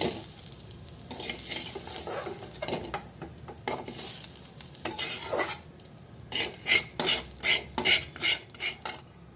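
Metal spoon scraping and stirring in a kadai with a light sizzle of ghee, as the sautéed herbs and tomato are scooped out. Near the end comes a quick run of clinks of the spoon against the pan.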